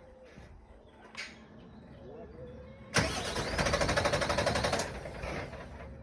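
Bin lorry's diesel engine being cranked on the starter, a fast even chugging for about two seconds that starts suddenly and stops without the engine catching: the lorry won't start.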